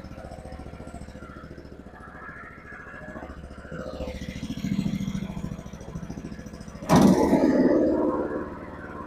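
Small petrol engine of a Forest Master FM8DD wood chipper running steadily on its first start-up. About seven seconds in a sudden loud burst of noise comes in and lasts a second or so before easing off.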